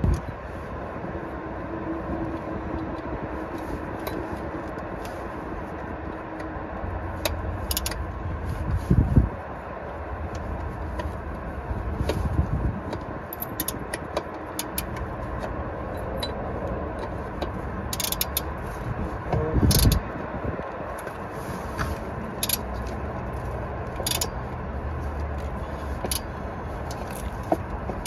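Light metallic clicks and scrapes of a replacement lambda (oxygen) sensor and its wire being worked by hand into the exhaust, with two dull knocks, one about nine seconds in and one near twenty seconds, over a steady low background rumble.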